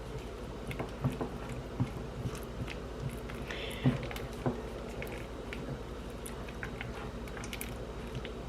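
Sliced strawberries being stirred into a soft, melted cream cheese mixture in a bowl: soft wet squishing with scattered light clicks and knocks of the utensil against the bowl.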